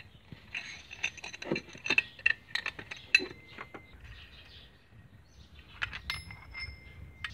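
Metal tools clinking and rattling as a socket and extension are worked on the serpentine belt tensioner bolt and the tensioner assembly is lifted out, with a few short, thin ringing notes near the middle and end.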